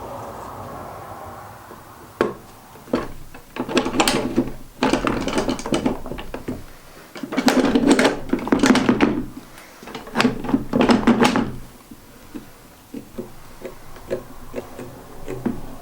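Plywood pieces being handled on a workbench: two sharp wooden knocks, then several rough scraping or sliding strokes of a second or two each, with small knocks and ticks near the end.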